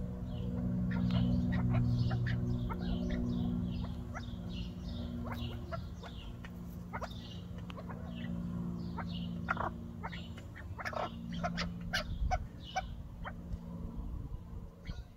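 Penned partridges calling: a run of short, repeated high chirps and calls throughout, with a steady low hum underneath.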